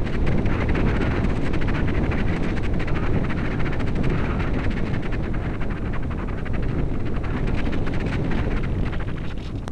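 Wind noise from airflow rushing over the onboard camera of a radio-controlled Radian glider in flight: a steady, loud rush with constant fine buffeting.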